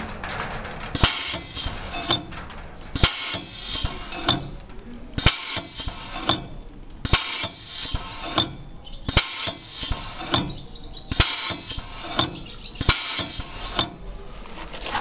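Edlund Model 625 air-powered crown-punch can opener cycling its pneumatic cutting head seven times, about every two seconds. Each stroke is a sharp click followed by about a second of hissing air.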